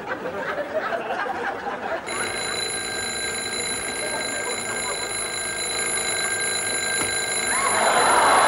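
Alarm clock bell ringing without a break from about two seconds in, sounding as a wake-up alarm. A louder, noisier sound joins it near the end.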